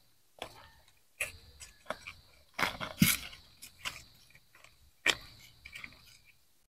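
Digging in hard, compacted potting soil in a plastic-lined pot: irregular crunching scrapes and knocks as the soil is broken up around the turmeric rhizomes, about nine strokes, the loudest about three seconds in.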